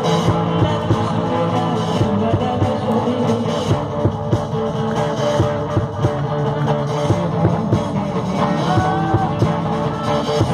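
Live rock band playing through a PA: electric guitars and a drum kit keeping a steady beat.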